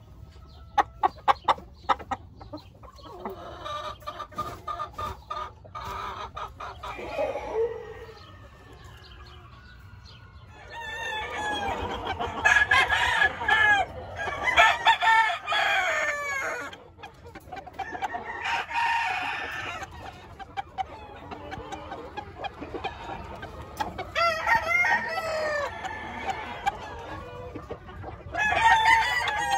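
Gamefowl roosters crowing again and again, several calls overlapping, with clucking between bouts. The first few seconds bring a quick run of sharp clicks and quieter calls, and the crowing grows louder and denser from about a third of the way in.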